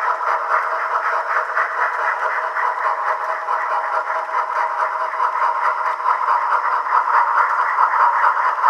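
Steam locomotive sound from an HO scale brass locomotive's Soundtraxx Tsunami2 DCC decoder, played through the model's small speaker: steady, rapid exhaust chuffing as the engine runs, with a thin, tinny tone.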